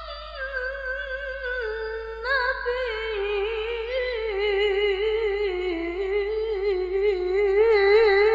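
A woman reciting the Qur'an in melodic tilawah style, in a high, clear voice: one long drawn-out phrase of held notes with quick wavering ornaments, the melody stepping down in pitch over several seconds.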